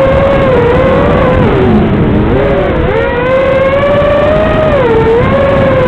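FPV multirotor drone's electric motors whining with the throttle, the pitch dipping low about two seconds in and climbing back, then dipping briefly again near the end, over heavy wind rumble on the onboard microphone.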